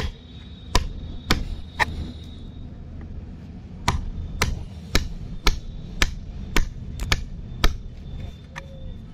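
Steel wood chisel struck repeatedly to drive it into a board and cut out a V-shaped notch: sharp knocks about twice a second, with a pause of about two seconds after the first few strikes.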